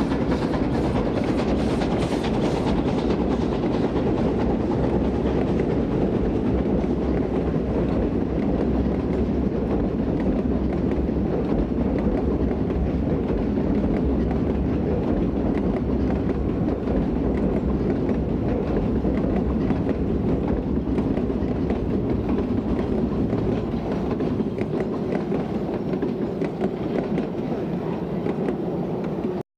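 Steam-hauled coal train crossing a steel girder bridge: the locomotive's exhaust beats are heard in the first few seconds, then the loaded coal wagons rumble and clatter steadily over the bridge, easing slightly near the end.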